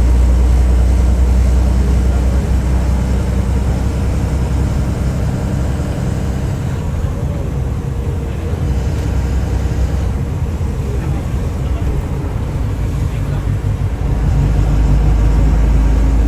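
Heavy rain with vehicle noise: a steady deep rumble under a hiss. It eases after a few seconds and swells again near the end.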